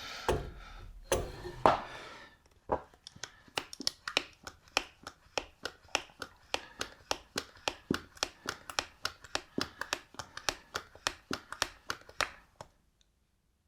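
One-hand grease gun being pumped to prime it after filling, its lever clicking in a long even run of about four strokes a second until grease comes out. A couple of louder knocks come first, and the clicking stops suddenly near the end.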